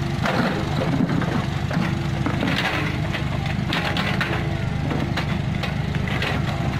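Komatsu PC45 mini excavator's diesel engine running steadily while its bucket digs through wet clay soil, with several crunching, scraping bursts as the bucket cuts and the soil breaks and falls.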